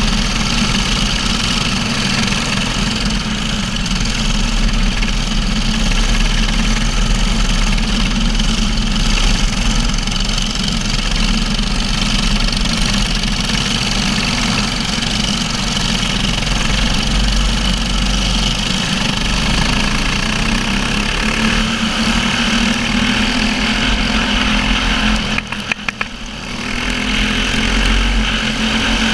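Racing kart engine heard from a camera mounted on the kart, running hard under racing load, with other karts' engines around it. Near the end the engine note drops briefly, as when the driver lifts off, then picks up again.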